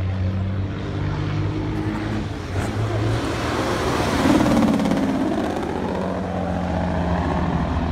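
Diesel semi truck's engine brake (Jake brake) firing as the truck runs past, a rapid pulsing exhaust bark that swells to its loudest about four seconds in and then fades, over the steady hum of idling truck engines.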